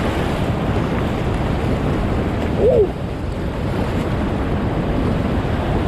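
Whitewater rapid rushing steadily around a kayak. About halfway through, a short tone rises and falls.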